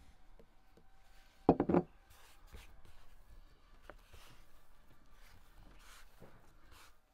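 A short, loud clattering knock on the wooden table about one and a half seconds in, then soft rubbing and brushing as hands roll a buttered, sugared sheet of dough up into a log on a wooden board.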